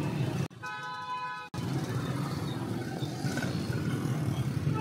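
Motorcycle engine and street traffic running steadily during a ride, with a vehicle horn sounding once for about a second near the start, while the engine noise cuts out abruptly.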